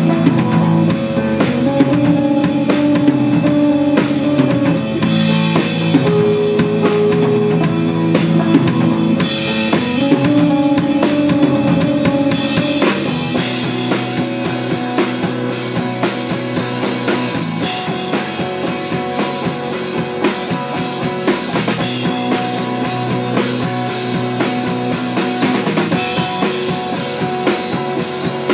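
Instrumental rock band music, with a drum kit keeping a steady beat under sustained guitar or keyboard chords; about halfway through, the cymbals come in much louder.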